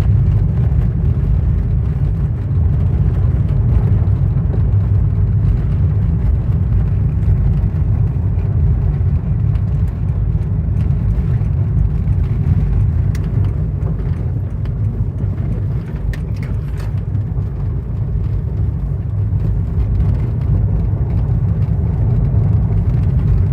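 Steady, loud low rumble of a motor vehicle running, with a few faint clicks about halfway through.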